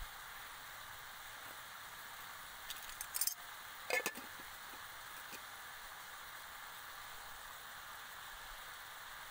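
Pork and greens sizzling steadily in a frying pan, with a few short metal clinks about three and four seconds in.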